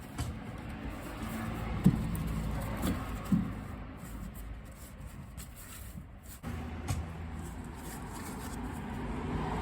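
The 2001 Jeep Cherokee's 4.0L inline-six engine running steadily, with two sharp knocks about two and three and a half seconds in.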